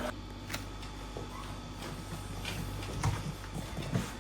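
Faint kitchen handling sounds: scattered light clicks and a couple of soft knocks from utensils and dishes, over a low steady hum.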